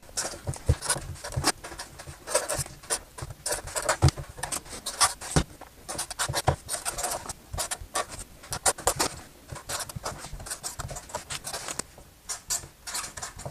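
Pen writing on sticky notes: quick, irregular scratching strokes mixed with small taps and rustles of paper on a desktop.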